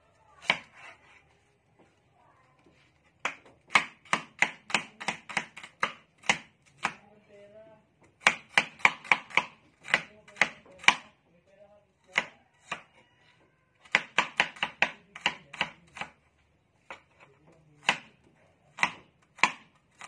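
Cleaver chopping shallots on a cutting board: runs of quick, sharp knocks at about three or four a second, broken by short pauses, then a few slower single chops near the end.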